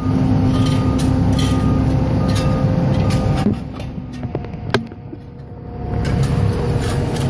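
Heavy machinery engine running steadily with a low rumble and a faint hum. The hum drops away about halfway through, the level dips briefly and comes back up, and there is one sharp click in the lull.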